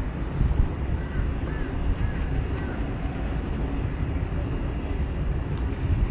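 Outdoor ambience: a steady low rumble, with a few faint distant calls between about one and two and a half seconds in.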